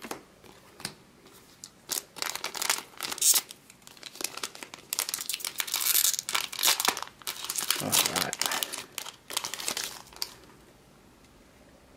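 Trading-card booster pack wrapper crinkling and tearing open by hand, an irregular run of crackles that stops near the end.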